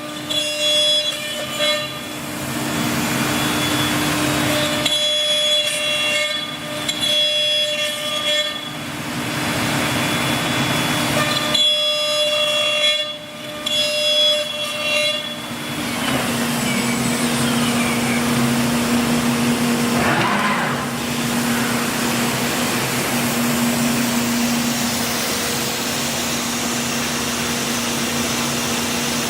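Biesse CNC machining center running, with a steady mechanical whine. Pitched tones cut in and out repeatedly for the first half. About halfway through the sound changes to a steady lower hum, with a brief sweep in pitch a few seconds later.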